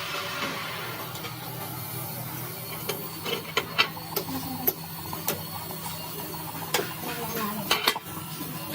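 Steady low hum of a running workshop machine, with a series of sharp metallic clicks and knocks from about three seconds in until near the end.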